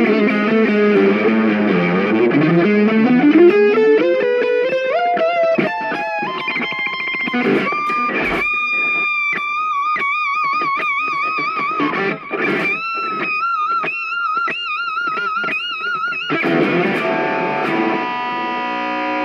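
Solo electric guitar, a Stratocaster, playing a lead line. It opens with fast runs of notes sweeping down and back up the neck, then moves to long held high notes with wide vibrato. Near the end a fuller chord rings out.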